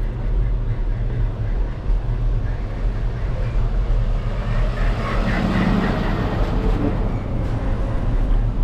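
Steady low rumble of wind and road noise on a moving bike-mounted camera, with a box truck's engine passing close by, loudest about five to six seconds in.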